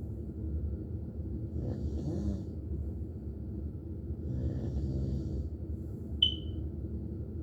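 A man snoring: two long snores, about two and five seconds in, over steady low breathing noise. A short, sharp high-pitched chirp about six seconds in is the loudest moment.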